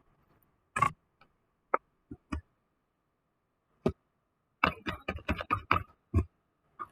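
Sharp clicks and knocks of small hard objects, a few scattered ones, then a quick run of about eight clicks in a second or so, about five seconds in.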